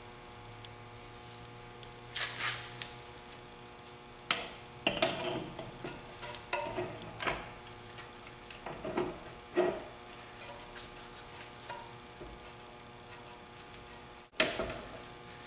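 A torque converter being pushed and turned onto a 46RE automatic transmission's input shaft: irregular metallic clunks, scrapes and rattles as it seats into the bellhousing, with a louder clank near the end. A faint steady hum runs underneath.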